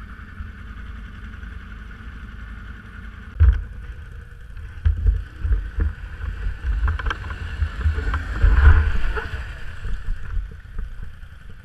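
BRP off-road vehicle engine running under load in low range with four-wheel drive engaged. Irregular heavy low thumps come in from about three and a half seconds, loudest near the end, as the vehicle jolts over rough ground.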